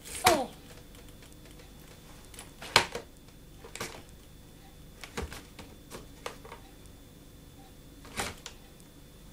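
A toddler hitting the capped plastic bottles of a shrink-wrapped case of water with his hands and a small stick: irregular sharp taps and clicks, with the loudest strikes near the start and just before three seconds in.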